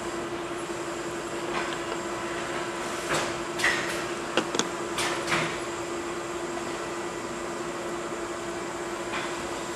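Metal bolts and lock washers being handled and set into a grinder's mounting plate: a few small clicks and scrapes in the middle, over a steady background hum.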